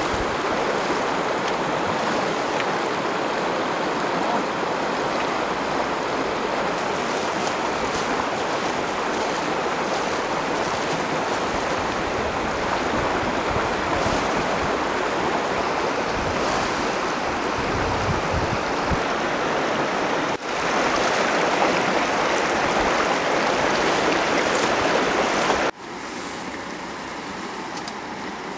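Steady rush and splash of river water as a man throws water over an elephant. The sound jumps abruptly louder about two-thirds of the way through, then drops to a quieter rush near the end.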